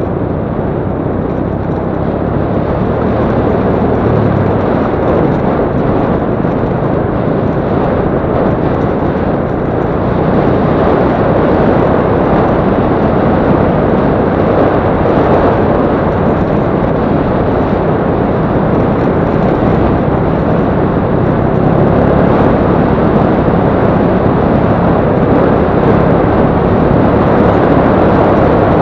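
Motorcycle riding along a gravel dirt track: the engine running under heavy, steady noise from wind and rough ground on the bike-mounted camera's microphone, growing a little louder about ten seconds in.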